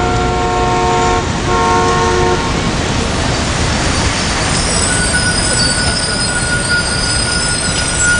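Busy wet city street traffic: a two-note vehicle horn blows twice in the first couple of seconds over a steady wash of engines and tyres on the wet road. A thin, steady high whine joins about halfway through.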